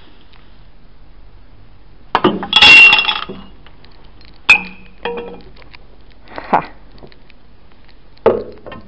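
Coins and glasses on a snooker table rail clinking as a trick shot knocks coins into drinking glasses: a loud clatter of clinking about two seconds in, then a few single sharp glass clinks with short ringing.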